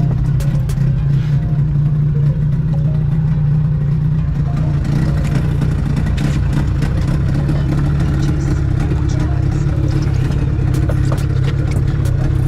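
Boat engine running steadily under way, a constant low hum with faint scattered clicks.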